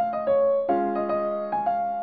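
Solo piano playing a song's melody in single notes over sustained chords, with a fresh chord struck about a third of the way in.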